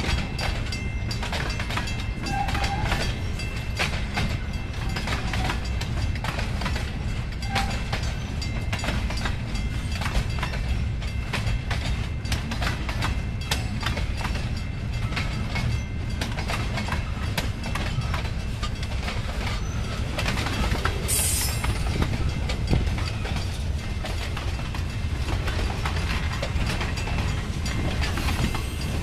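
Boxcars of a freight train rolling past with a steady low rumble, their wheels clicking over the rail joints. There is a short hiss about two-thirds of the way through.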